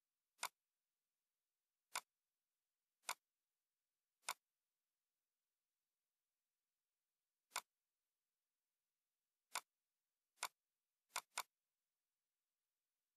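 Computer mouse button clicking, nine single sharp clicks at uneven intervals, the last two close together like a double-click.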